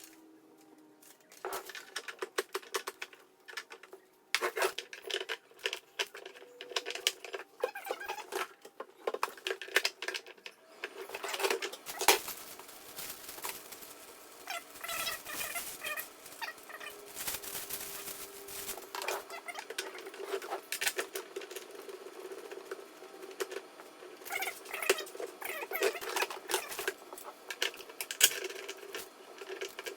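Irregular clicking, rattling and knocking of plastic and metal parts being handled and fitted together while an electric lawn dethatcher is assembled, with a few brief squeaks.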